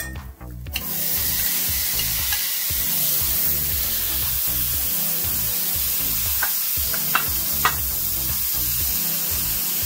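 Chopped onions and green bell peppers hitting a hot stainless-steel pot of lamb drippings and sizzling, a loud steady hiss that starts suddenly about a second in. A few sharp clinks sound a little past the middle.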